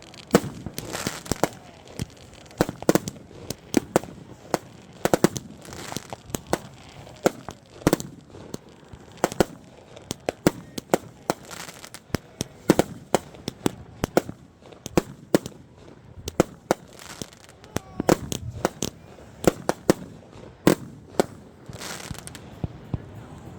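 Fireworks going off without pause: many sharp bangs and pops in quick succession, bunched several to a second at times, with crackling in between.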